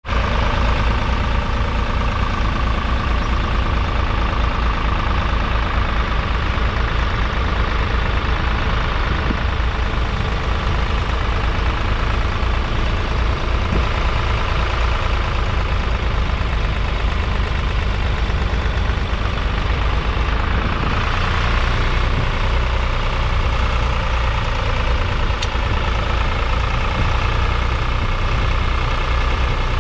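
1969 John Deere 820's 2.5-litre three-cylinder diesel engine running steadily as the tractor pulls a two-furrow mounted plough through the ground.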